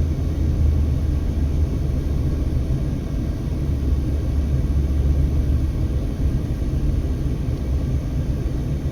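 A car in motion: a deep, steady rumble of road and wind noise, with no other event standing out.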